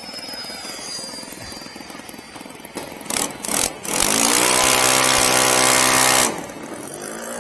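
O.S. FS-120 four-stroke glow engine of a large-scale RC A6M Zero, idling on the ground. About three seconds in it is blipped a few times, then run up to full throttle for about two seconds before dropping back to idle.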